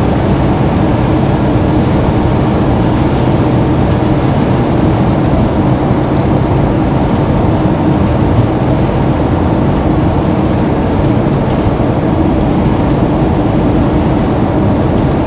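Steady motorway cruising noise inside the cab of a Fiat Ducato-based motorhome: tyre and road roar with the diesel engine's drone beneath, and a faint steady hum.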